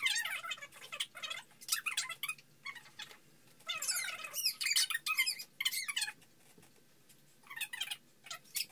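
A baby squealing and cooing in a string of short high-pitched bursts that glide up and down in pitch.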